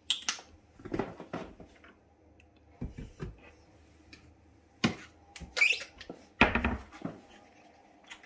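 Scattered clicks, knocks and scrapes of kitchen items, such as sauce bottles, being picked up, handled and set down on a countertop. About half a dozen short sharp sounds are spread unevenly over several seconds.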